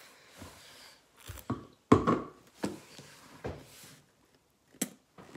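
Several short knocks and bumps close to the microphone, the loudest about two seconds in, with quiet between them.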